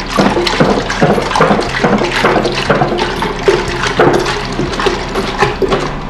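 Raw milk pouring in a steady stream from a plastic gallon jug into a stainless steel Instant Pot insert, with irregular glugs a few times a second.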